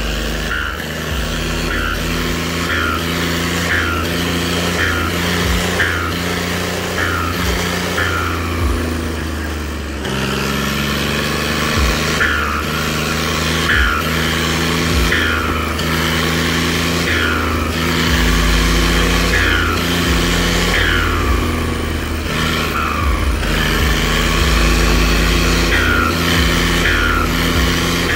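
John Deere tractor's turbocharged diesel engine, throttle pumped over and over while driving, each lift-off giving a short falling turbo whistle ('siti'), roughly one a second, with a pause of a few seconds partway through.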